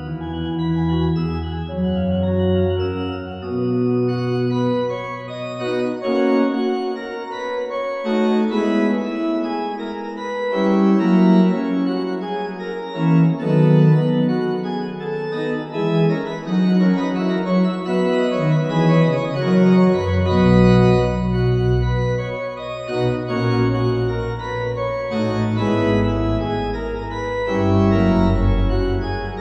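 Sampled Baroque pipe organ, the Schnitger organ of St. Michaelskerk in Zwolle played through Hauptwerk, playing a lively chaconne of sustained chords and running lines. The deep pedal bass drops out about four seconds in and comes back strongly about two-thirds of the way through.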